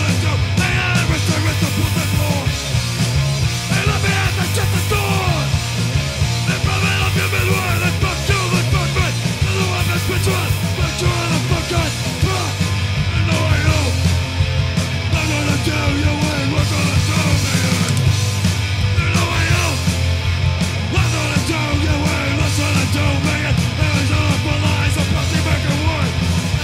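Loud punk rock song with a steady driving beat and shouted vocals.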